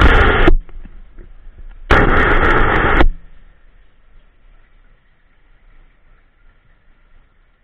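Two loud, muffled bursts of rumbling noise, each about a second long, typical of a camera being knocked and moved underwater in its housing; afterwards only a faint steady hum.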